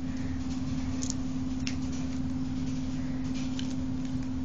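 Handheld electric massager running, a steady vibrating hum with a few faint clicks as it is moved about.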